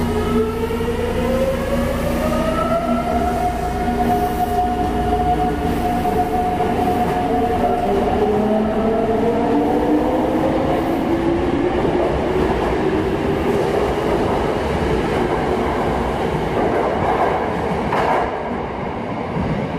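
Yokohama Municipal Subway 3000A-series electric train pulling away from the platform: the inverter motor whine rises through several stepped tones as it gathers speed, over the rumble of the cars rolling past on the rails. Near the end the sound changes abruptly.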